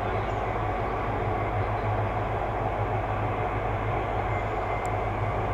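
Electric freight locomotive standing with its equipment running: a steady, even hum with a low drone underneath.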